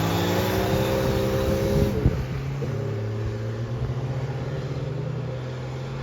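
A mud-drag vehicle's engine under hard throttle, its pitch climbing and then holding high. About two seconds in there is a sudden bang and the revs drop sharply, and the engine then runs steadily at a lower pitch.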